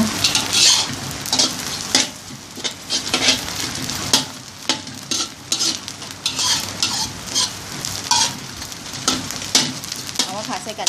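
Spatula scraping and knocking around a wok as salted duck egg yolk and fried shallots are stir-fried in oil over turned-up heat. Irregular scrapes and clicks, several a second, sit over a steady sizzle.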